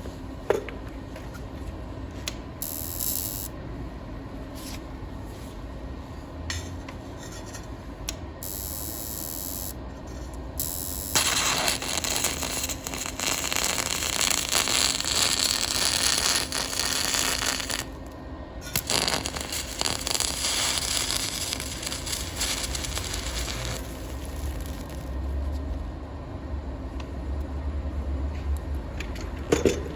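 Panasonic inverter DC TIG welding power source running with a steady low hum. Brief hissing comes twice early on, then long loud hissing from about a third of the way in until past the middle, broken by a short gap.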